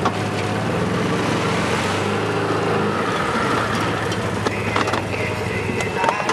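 Side-by-side UTV engine running steadily at low revs, with a few small knocks over it.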